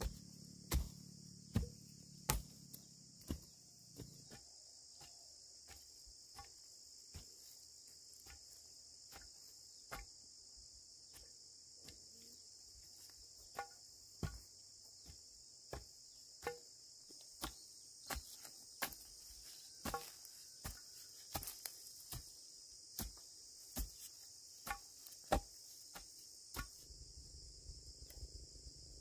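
A wooden planting stick jabbed again and again into burned, ash-covered soil, a short thud roughly every second, as holes are dibbled for sowing upland rice. A steady high chorus of insects runs underneath.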